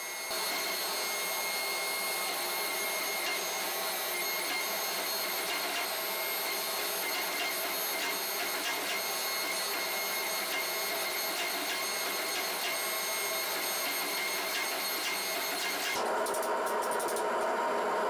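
Gas forge running with a steady rushing hiss. About sixteen seconds in the sound gets fuller, with faint rapid ticking.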